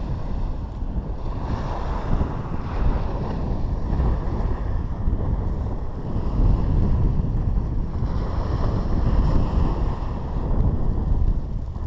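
Wind buffeting the microphone over waves breaking on a beach, a steady rush that swells and eases every few seconds.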